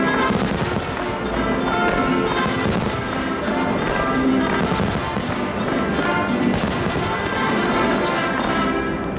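Fireworks display set to music: aerial shells bang and crackle repeatedly over a loud orchestral-style soundtrack.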